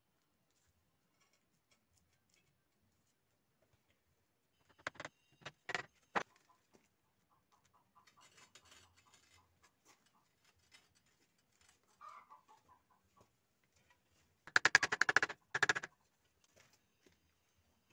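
Firebricks being set down and shifted on a steel forge plate: a few sharp knocks about five to six seconds in, light clinks, then near the end a loud gritty scrape of brick sliding against brick.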